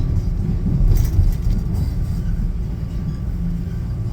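Toronto subway train running, heard from inside the car: a steady low rumble with a brief clatter about a second in.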